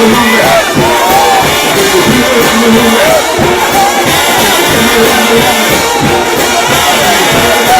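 A trombone shout band playing loud, fast gospel music, the horns sliding up and down in pitch over a steady beat, with a crowd of worshippers.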